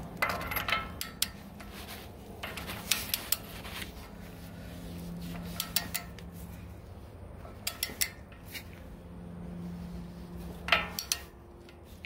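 Short groups of metallic clinks and clicks as a 15/16-inch deep socket and wrench are fitted to and worked on the castle nut of a lower ball joint.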